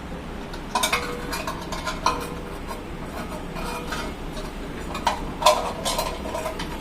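Irregular clicks and clinks of small hard parts being handled and fitted together as a toilet tank's fill valve (ball cock) is refitted, with bunches of taps about a second in and again near the end.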